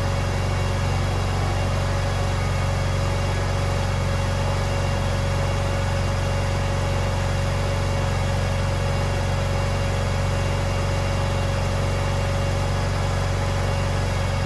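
Honda GX390 single-cylinder petrol engine on an 8 kVA generator running steadily with a low hum, unloaded during the controller's cool-down period before automatic shutdown.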